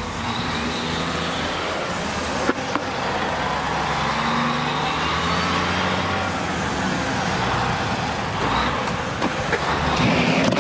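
Road traffic noise: motor vehicles running past in a steady rush of engines and tyres.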